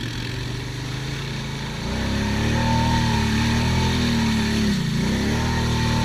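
ATV engine pulling through mud under throttle. It gets louder about two seconds in, its pitch dips briefly near the five-second mark as the throttle eases, then climbs back.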